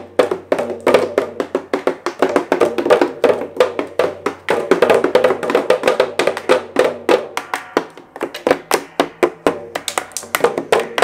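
Two plastic toy marching drums beaten at once with plastic sticks: a fast, uneven clatter of overlapping hits.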